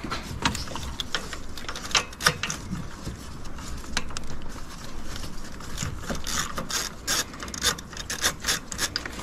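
Hand ratchet wrench clicking in short, irregular runs, with metal tool clinks, as the bolts on the AC compressor's refrigerant line fittings are loosened.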